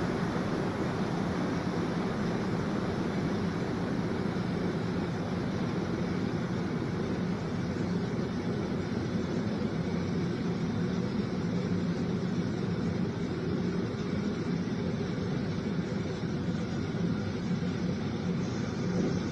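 Steady military aircraft engine noise in flight: a continuous drone with a low hum that neither swells nor fades.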